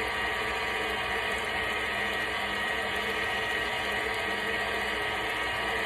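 Electric mixer running steadily at speed, a constant motor whine, creaming butter and sugar into cake batter.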